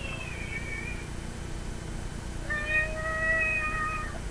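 A woman's voice singing two long, high, held notes through a phone's speaker: the first slides slightly down and fades about a second in, and the second is held steady for about a second and a half near the end.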